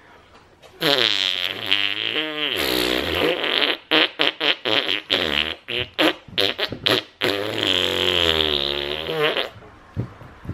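A man blowing raspberries against a baby's cheek: loud, fart-like lip buzzing. A long buzz about a second in, then a quick run of short choppy buzzes, then another long buzz that stops just before the end.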